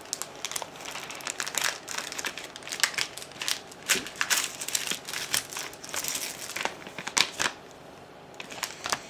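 Plastic packaging of a makeup brush set crinkling and crackling as it is handled and opened, with scattered irregular clicks. It goes quieter for about a second near the end.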